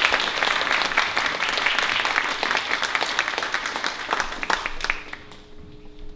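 Audience applauding, the clapping dying away about five seconds in. A faint steady tone is left near the end.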